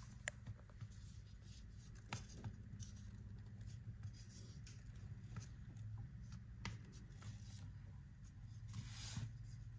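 Faint scattered clicks and soft scrapes of a wooden spoon handle and fingers crimping a pie crust edge against a pie plate, over a low steady room hum.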